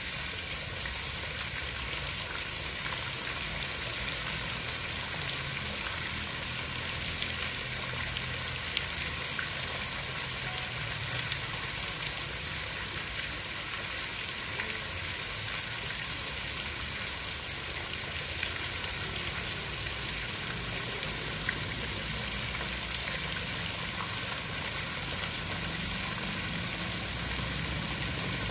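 Steady hiss of water, with a low rumble beneath it and a few faint ticks.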